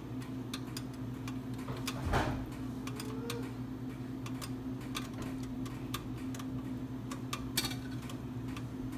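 Onion gravy cooking in a skillet, with small irregular pops and ticks throughout over a steady low hum. A heavier knock comes about two seconds in and a short clatter near the end as hamburger patties are laid into the pan with a spatula.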